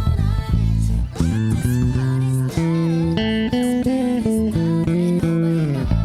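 Six-string electric bass, an Ibanez BTB866SC, played along with the song's music, with sliding notes early on and sustained notes and chords through the middle.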